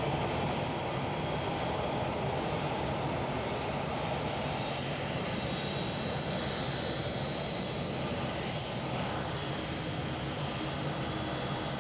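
Jet airliner's engines running steadily at idle while the plane waits to taxi: an even rushing noise with a thin high whine that grows a little stronger midway.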